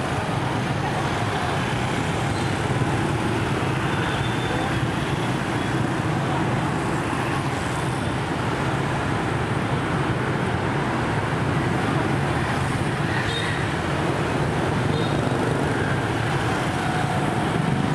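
Dense city traffic of motor scooters and small motorbikes streaming past, a steady mix of small engines running and tyres on the road, with a few short high tones over it.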